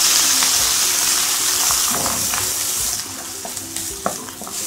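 Chopped onion frying in hot ghee in a kadai: a loud sizzle that dies down sharply about three seconds in. A wooden spatula scrapes and taps the pan as the onion is stirred.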